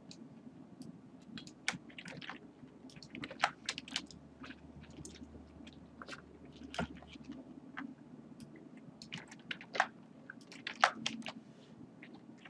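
Irregular, sharp little clicks and crackles close to the microphone, coming in uneven clusters at varying strength over a faint low hum.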